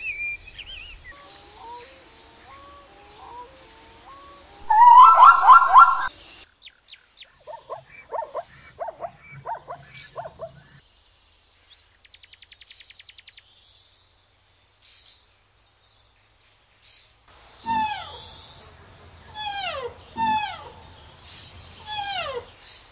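A string of deer and zebra calls. There are wavering calls at first, a loud call about five seconds in, a run of short calls around eight to ten seconds, and a brief fast rattle. Near the end, four high calls slide steeply downward.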